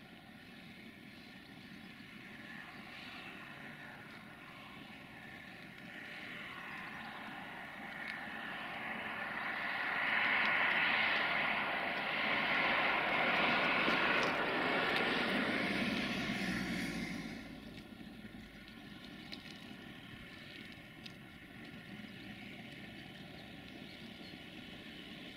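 Diesel engine drone of a CFR 060-DA (LDE2100) diesel-electric locomotive, a Sulzer 12LDA28 V12, working a freight train in at low speed. It swells louder for several seconds in the middle, then drops back sharply about seventeen seconds in.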